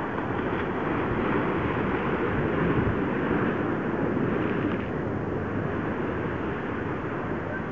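Wind buffeting the microphone: a steady rushing noise with no distinct events.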